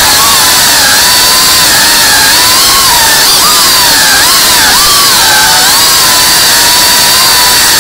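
FPV racing quadcopter's brushless motors and propellers whining loudly, heard from the camera on the drone; the pitch keeps rising and dipping as the throttle changes.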